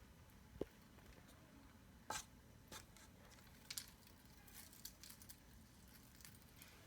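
Near silence: a faint, steady low hum from a Hampton Bay Littleton ceiling fan running, with a few light clicks and ticks.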